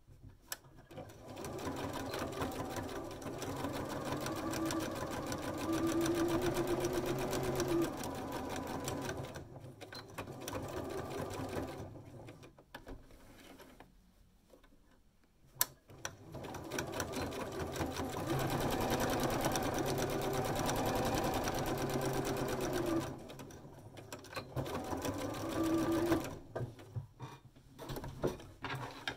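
Electric domestic sewing machine stitching fabric. It runs for about ten seconds, stops for a few seconds, with a single click in the pause, runs again for about ten seconds, then stitches in a few short stops and starts near the end.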